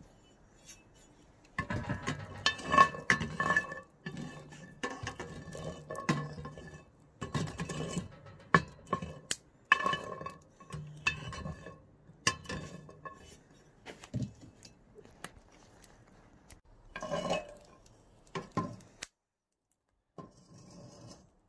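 Homemade metal chestnut-roasting pan clattering and clinking on the metal ring of a fire pit, a busy run of knocks with short metallic rings. It stops about nineteen seconds in.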